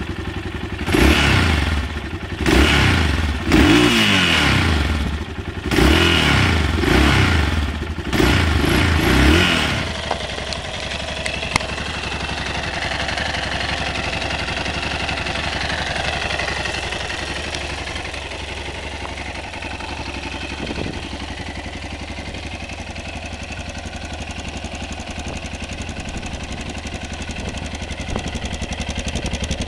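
Yamaha MT-03's single-cylinder 660 cc engine, standing still and revved in about six quick throttle blips, each rising and falling, then idling steadily for the rest of the time.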